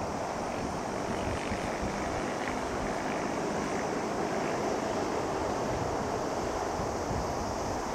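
Steady rushing noise of wind with a distant low vehicle rumble underneath.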